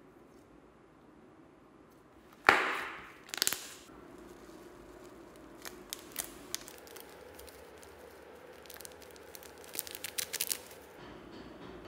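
Slime being handled: a loud sharp pop, a smaller one about a second later, then a run of small clicks and crackles that grows busier near the end.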